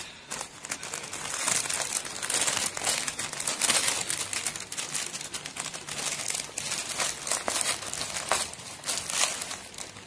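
Plastic packaging crinkling and rustling as a courier mailer bag and the clear plastic bag inside it are handled and pulled open, with irregular crackles throughout.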